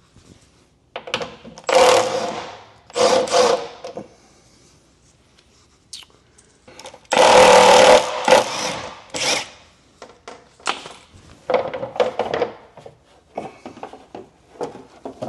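Power tool run in several short bursts, the longest and loudest about halfway through, as it takes out the bolts holding the plastic OEM skid plate under a Toyota FJ Cruiser.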